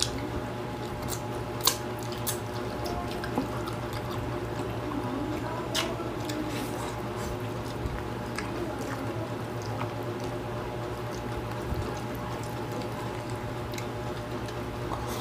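Close-miked eating sounds: wet, squishy chewing and lip smacks from people eating rice and fried fish by hand, with a few sharp clicks. A steady low hum runs underneath.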